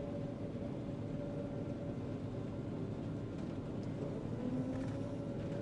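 John Deere 9500 combine running under harvest load, heard from inside the cab: a steady drone with a high whine that dips briefly and climbs back about four seconds in.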